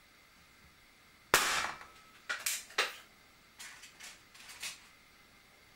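A Webley Nemesis single-stroke pneumatic air pistol fires one shot about a second in, a sharp crack with a short tail. Several lighter clicks and knocks follow over the next few seconds.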